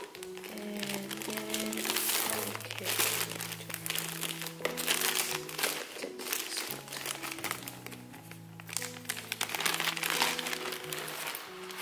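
Clear plastic packaging bag crinkling in bursts as it is grabbed and lifted out of a cardboard box, over soft background music of slow, held notes.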